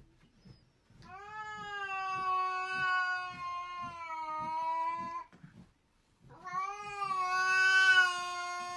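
Cat yowling in two long, drawn-out calls, each held at a nearly steady pitch for several seconds. The second call starts about six seconds in.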